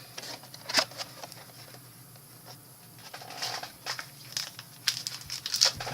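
Plastic shrink-wrap being torn off a box of trading cards and crinkled by hand, in irregular short rustles and crackles with a few sharper tears.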